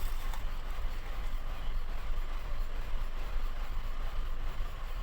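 Car engine idling roughly with a steady low running sound: a cylinder misfire from a dead cylinder that has lost compression.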